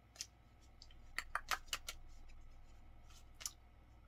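Tarot cards handled on a tabletop: faint light clicks and taps of card on card and card on table, with a quick run of them about a second in and two more near the end.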